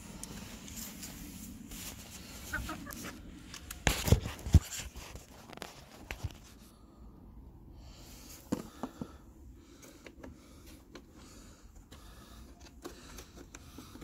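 Domestic hens clucking in a wooden chicken coop, with a cluster of sharp knocks about four seconds in and another near the middle.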